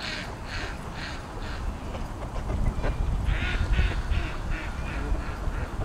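Mallard ducks quacking in two runs of rough, evenly spaced quacks, the second run starting about three seconds in, over a low rumble.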